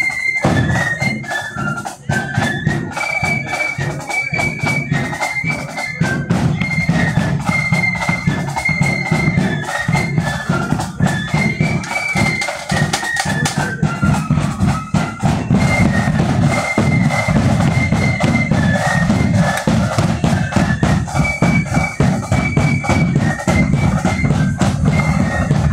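Marching flute band playing a tune: high flutes carry the melody over a steady beat of snare and bass drums.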